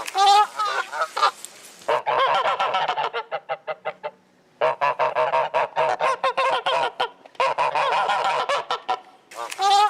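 Geese honking, several calling over one another in rapid repeated series. The calls come in blocks that start and stop abruptly, with a brief pause about four seconds in.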